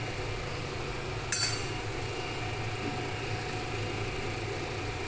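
One sharp metallic clink of cookware about a second and a half in, ringing briefly, over a steady low hum.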